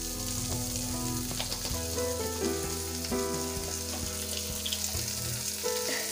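Onion-tomato masala sizzling as it fries in an aluminium kadai, stirred with a spoon that gives a few light scrapes and taps. Background music with changing notes plays throughout.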